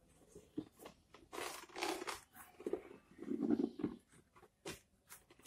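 Pen writing on paper: a run of short, irregular strokes, most of them in the first four seconds.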